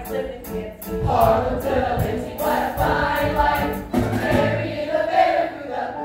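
Musical-theatre cast singing together as a chorus over accompaniment with a strong, regular beat. The voices stop right at the end, leaving held instrumental chords.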